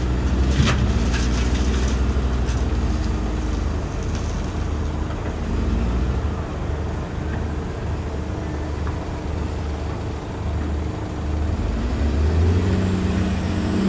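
Heavy diesel engines running as a Caterpillar wheel loader tips a bucketload of earth into a truck's steel tipper body, with a short clatter of dirt and stones landing in the first second or so. The engine note swells near the end as the loader pulls back.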